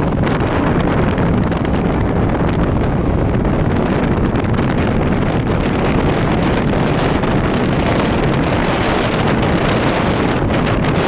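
Steady wind rushing over the microphone aboard a moving boat, with the boat's running noise and water underneath.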